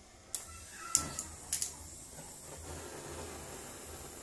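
A few sharp clicks in the first second and a half, then the steady hiss of a butane canister torch burning.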